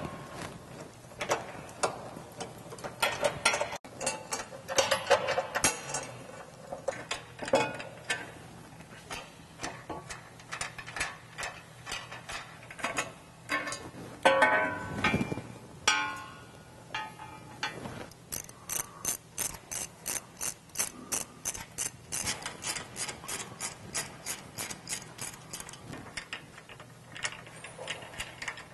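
Hand ratchet with an 18 mm socket clicking as crossmember bolts are backed out from under a Jeep Gladiator. Irregular clicks give way in the second half to a steady run of about three to four clicks a second, with a louder knock about halfway.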